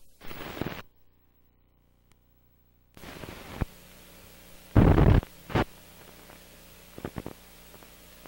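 Bursts of hiss and crackle from a worn, many-generation videotape and film transfer over a steady low hum, with a dead silent gap of about two seconds, a loud crackling burst about five seconds in and a few sharp clicks a little later, as the film countdown leader runs.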